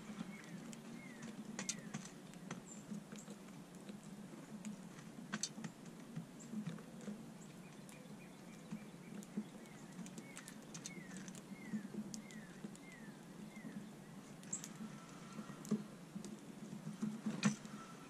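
Mourning doves pecking seed off a wooden deck and a feeding dish: scattered sharp clicks and taps over a low steady hum. Twice, a short run of quick falling bird chirps sounds in the background.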